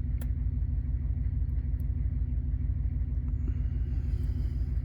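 A steady low rumble with a fast, even pulse, like an engine running, with a few faint light clicks of a pick working the pins of a Bi-Lock-style lock.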